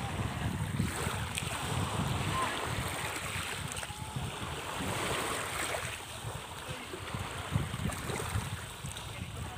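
Sea water and small waves washing, with wind buffeting the microphone in gusts.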